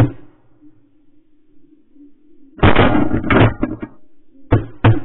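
Shotgun shots at flying geese: one sharp shot at the very start, a burst of several loud shots close together in the middle, then two quick shots near the end, all loud and clipped.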